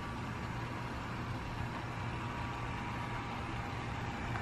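Steady rain falling outdoors, an even hiss with a low steady hum underneath.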